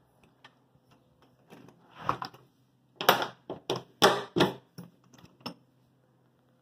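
Back door being pulled shut and latched: a run of sharp clacks and knocks, loudest about two, three and four seconds in.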